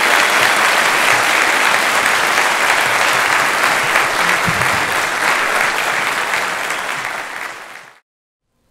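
Audience applauding steadily, easing off slightly before it cuts off abruptly about eight seconds in.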